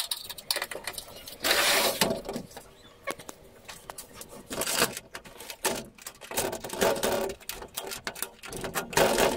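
Irregular clicks, knocks and scrapes of hand work on a pocket sliding door's frame, with a few louder scraping bursts, the biggest about a second and a half in and another near the end.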